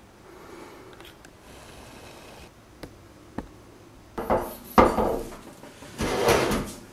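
Metal objects being handled: a few light clicks, then three louder clattering knocks in the second half.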